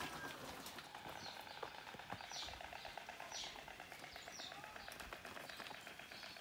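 Faint bird chirping: short high notes that fall in pitch, repeated about once a second, over a faint fast trill.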